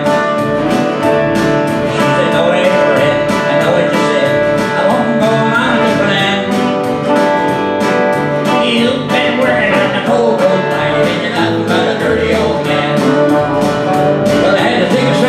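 Live country song: a man singing, accompanied by strummed acoustic guitar and electric bass guitar, played through a small PA system.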